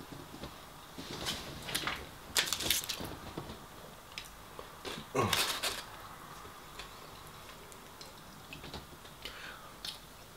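Crinkling of chip-shop paper wrapping and small knocks as food is handled and dipped in ketchup, in short scattered rustles, with one brief sound about five seconds in that slides down in pitch.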